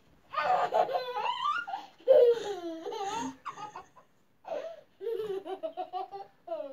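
Young child laughing and squealing in high-pitched bursts that slide up and down in pitch, then a run of quick short giggles after a brief pause.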